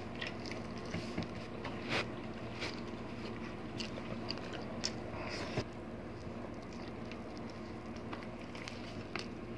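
Quiet mouth sounds of eating braised pork hock by hand: chewing, biting and small wet clicks of lips and finger-licking, scattered through. A low steady hum runs underneath.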